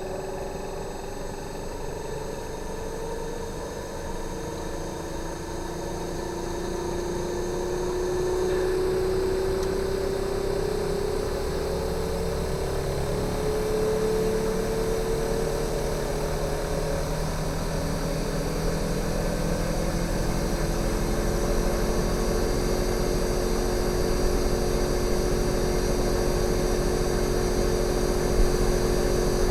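Fujitsu General AO-C28H air-conditioner outdoor unit running in defrost mode: the inverter compressor hums with a steady tone that rises slowly in pitch and gets gradually louder as its speed is ramped up.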